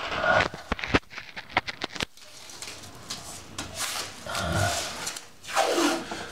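Close handling noise: a quick run of sharp clicks and crackles in the first two seconds, then softer rustling and rubbing, with a few muffled voice sounds.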